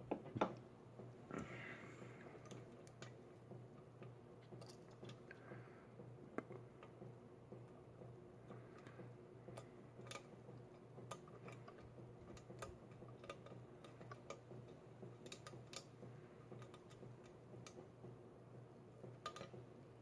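Faint, irregular ticks and clicks of a hook pick working the pins of a Defiant pin-tumbler lock held under tension, with one sharper click about half a second in. A low steady hum runs underneath.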